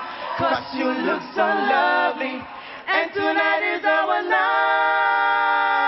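A cappella vocal trio of two men and a woman singing in harmony without instruments; about four seconds in the voices settle into a long held chord.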